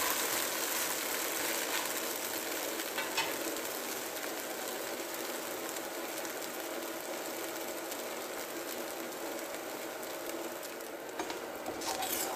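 Thin pancake sizzling steadily as its second side fries in a lard-greased cast-iron pan, with a few light knocks near the end.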